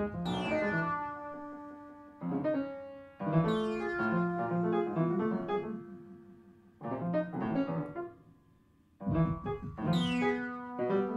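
Free-jazz piano music: chords and runs struck in loose phrases that ring and fade, with a short pause about eight seconds in.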